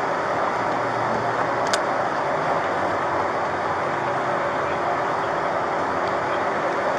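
Steady vehicle noise with a faint constant hum, as from an engine running or traffic on the street, with one short click about two seconds in.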